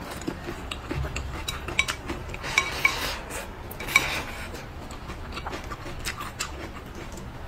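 Wooden chopsticks clicking and scraping against a ceramic rice bowl, with three sharp ringing clinks a few seconds in. Close-miked wet biting and chewing of braised pork trotter run alongside.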